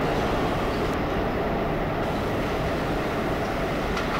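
An R32 subway train running away down the tunnel, a steady rumble that slowly fades, with a faint click near the end.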